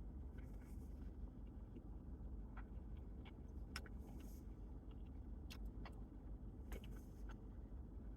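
Faint, steady low hum of a car idling, heard from inside the cabin, with a scattering of faint short clicks and rustles.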